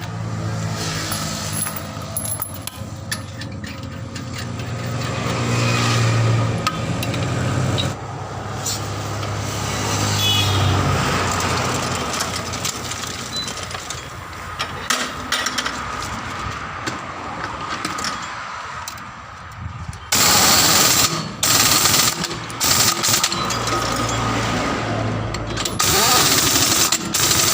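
Workshop machinery running: a low machine hum that rises and falls, then about two-thirds of the way in a power tool starts up loud with a hissing, grinding sound, stopping and starting in short runs.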